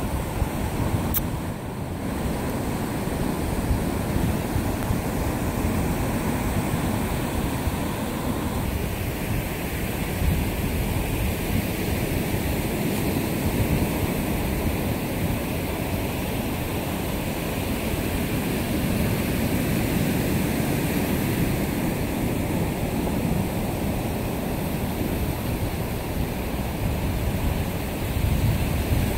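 Steady noise of sea surf and wind on a beach, with wind rumbling on the microphone.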